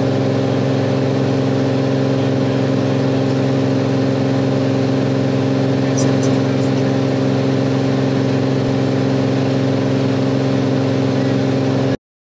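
Cirrus SR22's six-cylinder piston engine and propeller droning steadily in cruise flight, heard from inside the cabin. It cuts off abruptly near the end.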